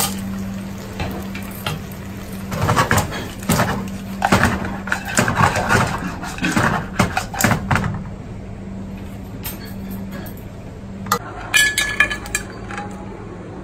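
A metal spoon knocks and scrapes in a nonstick frying pan as pasta is stirred and tossed. Near the end come a few ringing clinks as the pan is tipped onto a ceramic plate to serve. A steady low hum runs underneath until shortly before the clinks.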